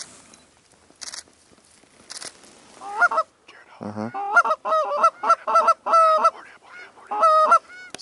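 Canada geese honking: after a quieter start, a rapid run of loud, short two-note honks begins about three seconds in and keeps on without a break.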